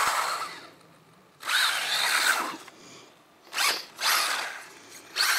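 Electric motor and drivetrain of a 1/14-scale Vaterra Kemora RC rally car whining in about four bursts of a second or less, as the throttle is pulsed on and off while it drives close by on concrete.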